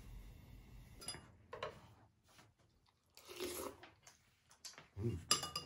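Eating at a table: a person chewing food, with utensils clicking against ceramic bowls and dishes in scattered strokes, the loudest a cluster of clinks about five seconds in.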